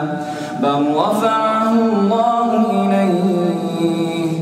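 A solo male voice reciting the Quran in melodic chant. After a short breath about half a second in, the voice rises into long held notes that waver and turn in pitch.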